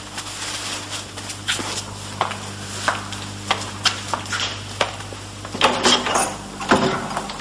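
Footsteps crossing a room, then a quick cluster of knocks and clicks at a wooden door as it is unbolted and opened, over a steady low electrical hum.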